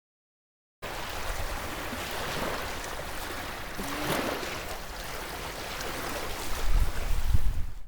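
Wind blowing over the microphone outdoors in a forest, a steady rushing noise that starts abruptly after a moment of silence, with low buffeting gusts near the end.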